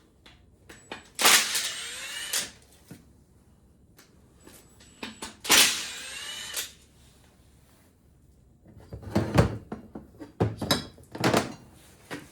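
Metal tools and engine parts being handled during an engine teardown: two loud scraping, rattling bursts, then a quick run of clanks and knocks near the end.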